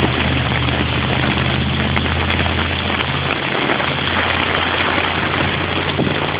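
A truck's engine running slowly with a low steady hum, under the steady hiss of heavy rain; the engine hum weakens about halfway through.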